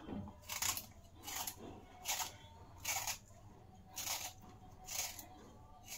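Hand vegetable peeler scraping the skin off a raw beetroot: about seven short scraping strokes, a little under a second apart.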